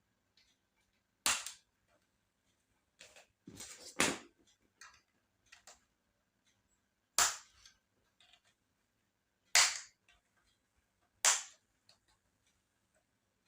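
Sharp plastic snaps and clicks as a laptop's bottom case is pried open: five loud snaps a couple of seconds apart, with fainter clicks between them, as the case's retaining clips let go.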